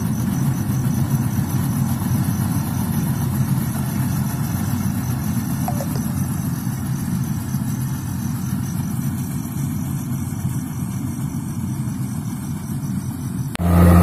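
Kubota rice combine harvester's engine running steadily. Near the end it suddenly gets much louder, with a deep steady hum.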